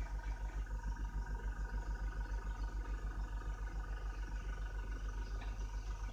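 Small airbrush air compressor running, with a steady low pulse of about seven beats a second and a faint motor whine.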